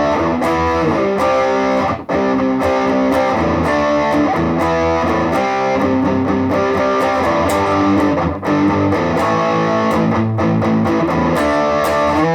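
Electric guitar played through a Positive Grid Reactor 50 1x12 combo amp on its Hi-Gain channel, smooth voicing, giving a distorted riff. The playing breaks off briefly about two seconds in and again just past eight seconds.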